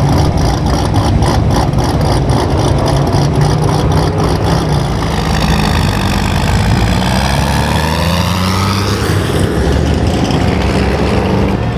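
Loud exhaust rumble from cruise cars pulling away. An old pickup truck accelerates past with its engine pitch rising and then falling as it goes by.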